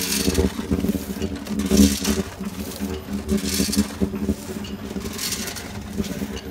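MD 300AK automatic bag-packing machine running: a steady motor hum, with a hiss and clatter that repeats about every 1.7 seconds as the machine cycles.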